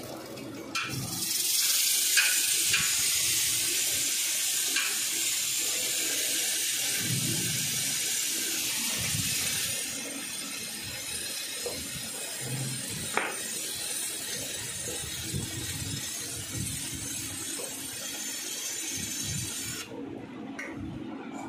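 A steady, high hiss that starts about a second in, is loudest for the first half, then runs on more weakly until it stops near the end, with a few light metallic clicks over it.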